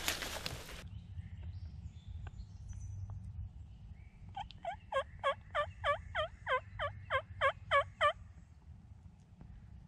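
Wild turkey yelping: a series of about a dozen evenly spaced yelps, roughly three a second, starting about halfway through. Before it, a hiss of noise cuts off abruptly just under a second in.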